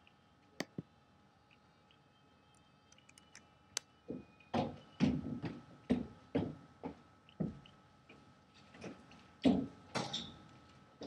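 Biscuit being chewed: a run of crunching chews about twice a second, starting about four seconds in, after a couple of sharp clicks.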